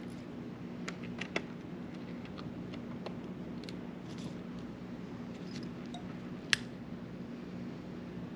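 Small metal clicks from tools and tiny reel parts being handled during reassembly of a baitcasting reel: a few light clicks about a second in and one sharper click about six and a half seconds in, over a steady low hum.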